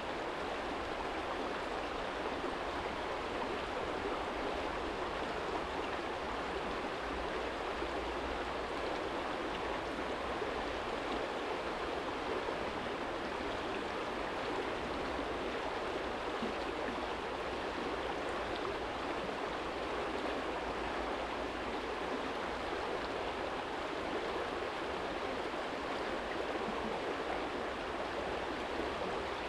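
Shallow stream flowing over a stony bed, a steady, even rush of water.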